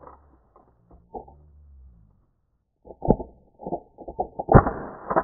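A run of irregular, muffled thumps and knocks that starts about three seconds in, after a quiet stretch, and grows louder near the end.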